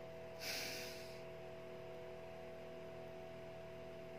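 A short breath out through the nose about half a second in, lasting under a second, over a faint steady electrical hum.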